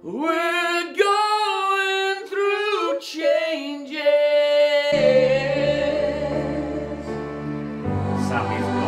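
A man sings a slow ballad melody alone, with no accompaniment; about five seconds in, an instrumental backing comes in under a long held note and grows fuller near the end.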